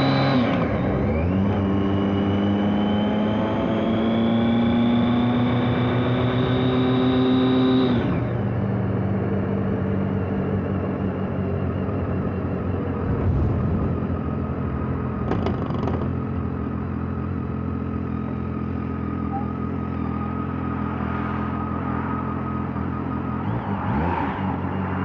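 BMW K1200R inline-four on its stock exhaust, under way. Revs dip briefly about half a second in, then climb steadily under acceleration until about eight seconds in. There they drop sharply, and the engine settles to a steady, lower-pitched cruise.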